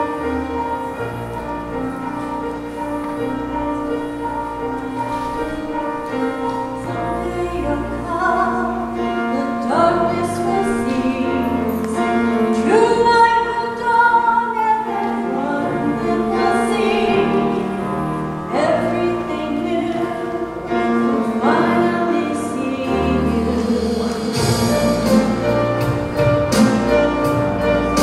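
Church praise band playing live: acoustic guitar, electric bass, piano and drums, with a woman's singing voice coming in about eight seconds in over the sustained instrumental chords.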